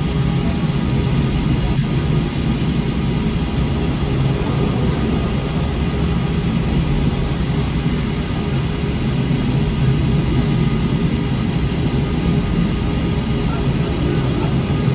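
Steady rumbling noise of the Peak Tram, a cable-hauled funicular, running.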